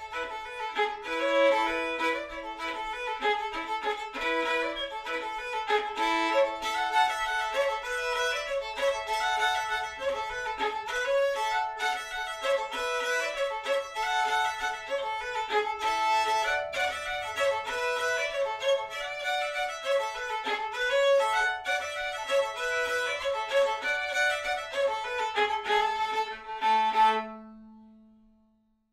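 Solo fiddle playing a trad-style folk tune in quick bowed notes, ending on a held low note that fades away near the end.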